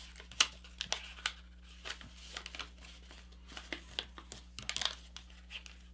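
Folded A4 paper being handled and creased by hand: soft irregular crinkles and rustles of the paper layers, with a sharper crackle about half a second in and a quick cluster of them near the end.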